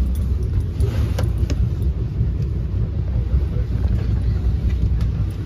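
Steady low rumble of an NJ Transit Multilevel passenger coach rolling along the rails, heard from inside the cabin. A couple of sharp clicks come about a second in.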